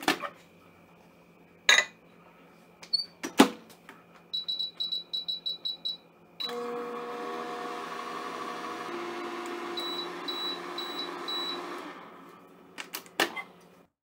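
Samsung microwave oven: the door shuts with a loud click and a quick run of about ten high button beeps sets the timer. Then the oven starts running with a steady hum, with a few faint beeps over it. The hum fades out, and near the end come a couple of clicks from the door.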